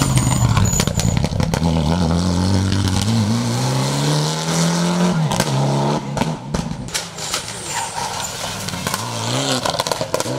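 Rally car, a Mitsubishi Lancer Evolution with its turbocharged four-cylinder, accelerating hard out of a hairpin: the engine pitch rises steadily and drops once at a gear change about five seconds in. Near the end another rally car gives short throttle blips as it brakes and shifts down for the hairpin, with sharp cracks throughout.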